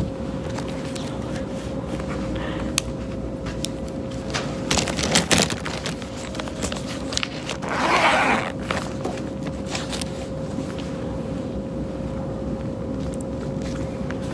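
Pens and markers handled on a desk with scattered clicks and knocks, and a fabric pencil case zipper pulled for about a second halfway through. A steady hum runs underneath.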